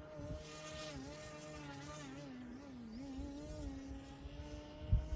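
E-flite Timber X RC plane's electric motor and propeller buzzing in flight, the pitch wavering up and down and then holding steady, with wind rumbling on the microphone and a thump near the end.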